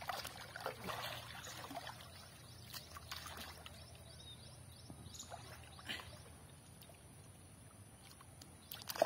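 Pond water splashing and sloshing as people wade chest-deep and haul in a wet fishing net. A flurry of splashes comes in the first two seconds, then a few scattered ones, and a short, sharp, louder sound at the very end.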